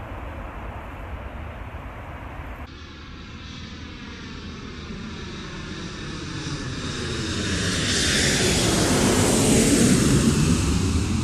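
A twin-engine jet airliner passing low overhead on its landing approach. Its engine noise swells with a sweeping, phasing whoosh, is loudest about nine to ten seconds in, then starts to fade. For about the first three seconds, before the pass, there is a quieter, steadier jet rumble.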